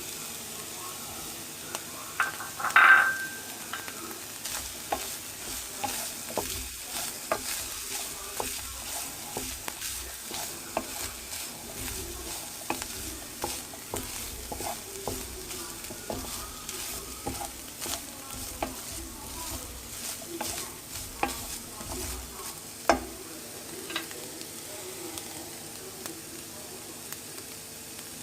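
Food sizzling in a frying pan while it is stirred and scraped with a utensil, making many small clicks. A loud ringing clink of the utensil against the pan comes about three seconds in, and another sharp knock comes later.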